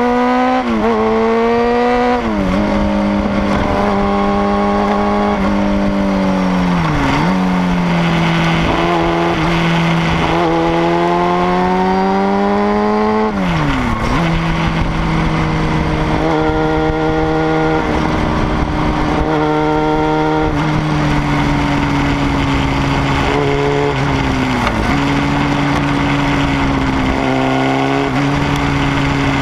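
Sport motorcycle engine under way on a winding road. Its note climbs and falls sharply three times in the first half, then holds fairly steady with one brief dip near the end, over a constant rush of wind.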